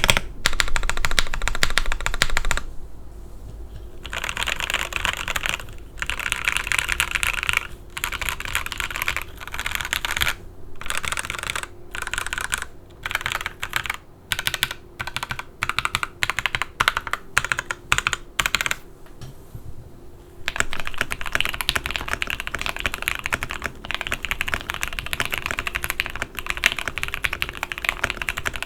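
Typing on a Photon wireless mechanical keyboard with factory-lubed Gateron EF Curry linear switches, a polycarbonate plate and NicePBT keycaps. Fast continuous keystrokes give way to slower, separate key presses in the middle, with short pauses. After a pause about two-thirds of the way through, the typing resumes with the board's internal foam fitted.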